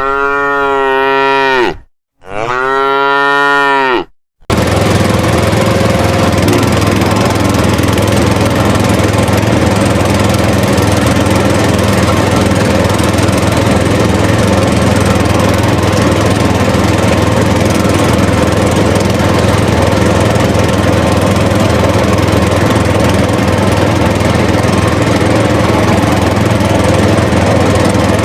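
Two drawn-out cow moos, one after the other, each about two seconds long and rising then falling in pitch. Then, cutting in suddenly a little after four seconds, a steady engine sound running at an even idle.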